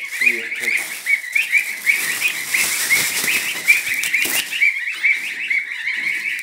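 A group of two-week-old goslings peeping continuously, many short rising calls a second. A burst of rustling comes about halfway through as one is caught.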